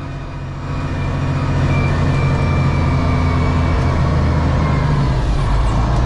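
John Deere wheel loader's diesel engine running steadily, getting louder about a second in as it works harder to push its bucket into the snow.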